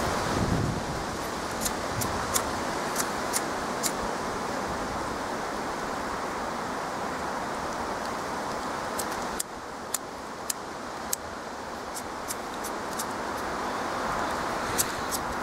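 Steady rush of wind, with a scattering of sharp, short clicks and snaps that come in two clusters, the first about two to four seconds in and the second from about nine seconds to the end.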